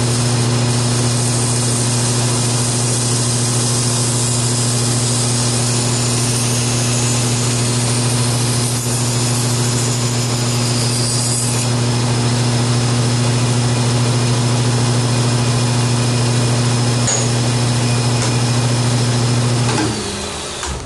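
Belt grinder running steadily with a strong motor hum and the hiss of a 400-grit Trizact belt sharpening a knife's edge. Near the end the motor spins down.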